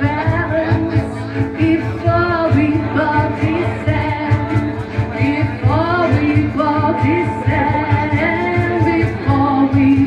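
A song playing: a steady beat and instruments with a wordless or indistinct vocal melody.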